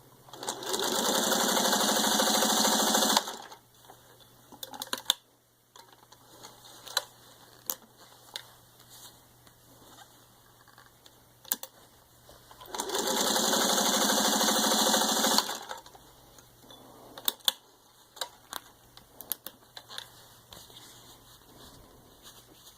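A 1953 Singer 301A sewing machine runs at speed, stitching through four layers of thin leather in two steady runs of about two and a half seconds each, the second starting about 13 seconds in. Scattered short clicks and knocks come between and after the runs.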